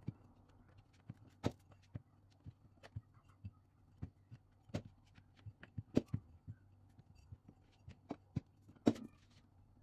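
Irregular sharp taps and knocks on a plastic cutting board as pastry dough is pressed and shaped on it, roughly two a second, the loudest about six seconds in and again near nine seconds.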